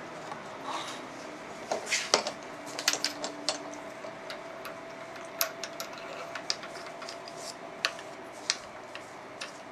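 Scattered sharp metallic clicks and taps as a thin steel tube is handled in a milling machine's vise and beside its chuck. The clicks are densest in the first few seconds, over a faint steady hum.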